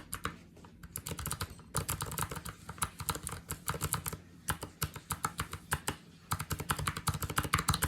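Typing on a mechanical keyboard fitted with handmade cast-resin keycaps: a rapid run of clacking keystrokes, the 'tiki tiki tiki' of the keys, broken by two brief pauses.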